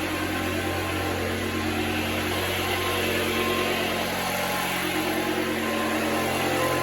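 Loud construction-site machinery running steadily: an even engine-like drone with a constant low hum and steady overtones, unbroken throughout.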